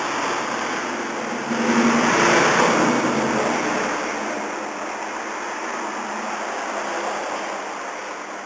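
A road vehicle passing by, its noise swelling about one and a half seconds in, peaking, then fading slowly.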